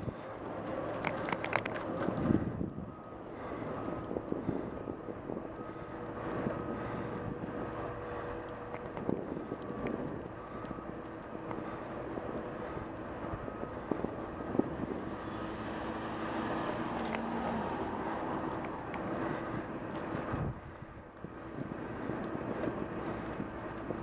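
Bicycle rolling along an asphalt road, heard from a camera mounted on the bike: steady tyre and wind noise on the microphone, with a few sharp knocks.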